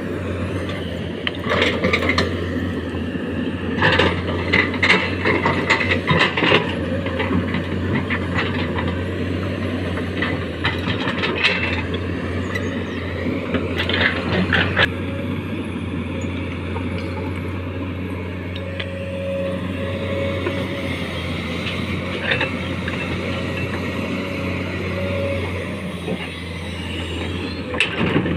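Komatsu excavator's diesel engine running steadily under load while its bucket digs into soil full of stones, with bursts of scraping clatter and knocks from rock several times.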